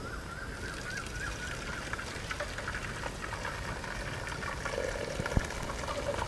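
Hot cooking water pouring and trickling out of a tilted clay pot of boiled cabbage into a metal strainer as the pieces are drained.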